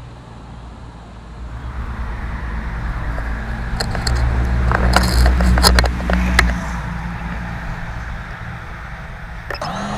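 Motors of a 5-inch freestyle FPV quadcopter spin up suddenly near the end and settle into a steady whine at idle as the drone is armed for takeoff. Before that, a low rumble swells and fades, with a few sharp clicks at its loudest.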